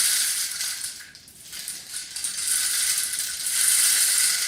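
Homemade rain stick being tipped, its fill of dried macaroni, beans and rice trickling down past nails set in a spiral inside the tube, giving a steady rain-like rattling hiss. It runs twice, in two long pours with a brief lull a little over a second in.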